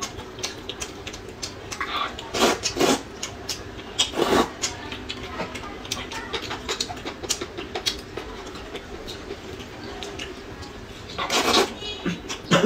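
Eating noodles: slurping and chewing, with chopsticks clicking against porcelain bowls. There are short slurps a few seconds in and a longer slurp near the end.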